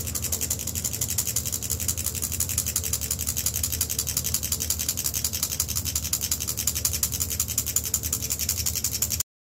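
Hand-held solder sprinkler: a toothed brass bar scraped rapidly against a slender metal tube, making a fast, even ratcheting rasp as it shakes powdered solder onto a silver filigree pendant. It cuts off suddenly near the end.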